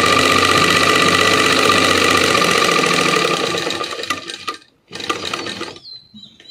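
Domestic sewing machine stitching steadily at speed through cotton fabric. It slows and stops about four seconds in, followed by a few faint light handling sounds.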